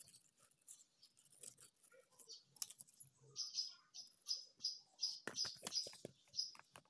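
Small metal rotary-tool cutting discs and mandrels clicking and rattling as they are handled in clear plastic storage boxes, with light plastic knocks. From about halfway, a run of evenly spaced high chirps comes about three a second, and a few louder knocks near the end.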